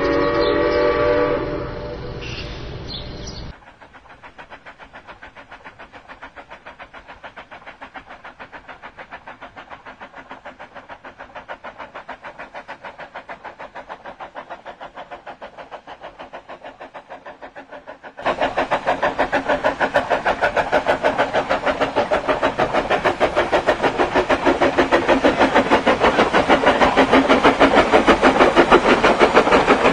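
Steam locomotive whistle sounding several notes together for about three and a half seconds. Then the steady, rapid beat of a working steam locomotive's exhaust, faint at first, cutting suddenly to much louder about eighteen seconds in and growing louder still toward the end.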